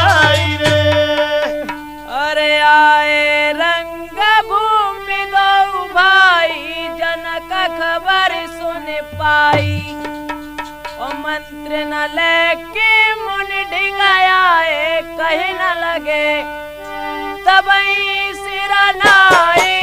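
Instrumental break in an Awadhi Holi folk song: an ornamented, bending melody line over a held drone note, with dholak drum strokes.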